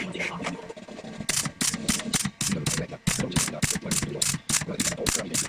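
Rapid, evenly spaced sharp clicks, about four a second, starting a little over a second in, over a low steady hum.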